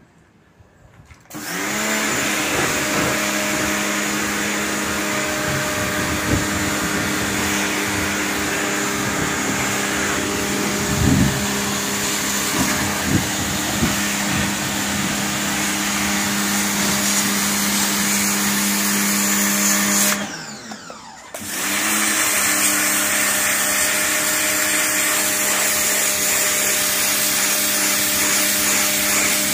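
Takara Europa electric high-pressure washer running, its motor-driven pump humming steadily under the hiss of the water jet blasting concrete paving and a block wall. The motor starts about a second in, winds down and stops about two-thirds of the way through, then starts up again a second later.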